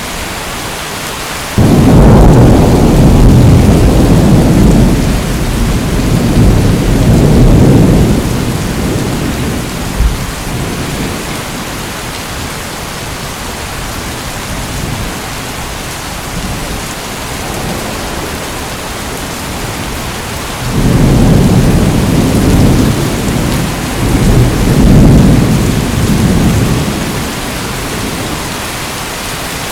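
Steady rain with two long rolls of thunder: the first breaks in suddenly about a second and a half in and rumbles for several seconds, the second rolls in about two-thirds of the way through and fades after about six seconds.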